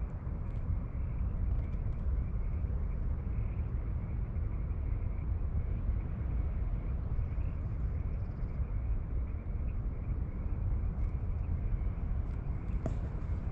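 Steady, fluttering low rumble of wind buffeting the camera microphone outdoors, with a few faint clicks near the end.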